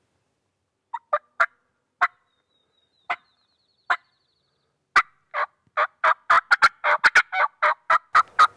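Turkey call worked loudly in imitation of a hen, meant to make a gobbler answer: a few sharp single notes spaced about a second apart, then about halfway through a fast, quickening string of notes.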